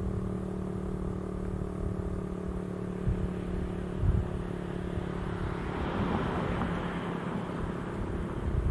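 FS&S STL-10A single-tone outdoor warning siren winding down slowly after its alert, now a low, steady hum with a higher overtone. A passing vehicle swells and fades about six to eight seconds in.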